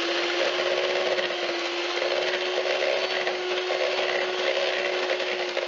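Electric hand mixer running at a constant speed with a steady motor whine, its beaters whisking eggs into choux pastry dough in a plastic bowl.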